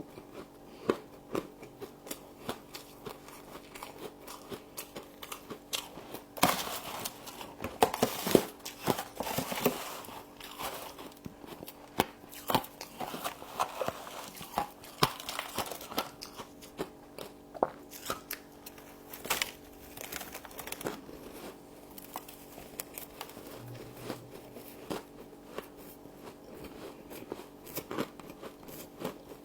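Frost being bitten and chewed up close, a run of sharp crunches and crackles that is densest and loudest about six to ten seconds in.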